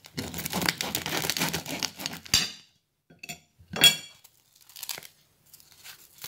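Knife sawing through the crust of a freshly baked round loaf of Moroccan bakery-style bread dusted with coarse semolina: a dense rasping crackle for about two and a half seconds. A sharp ringing clink comes about four seconds in, followed by soft crackles as the loaf is pulled apart by hand.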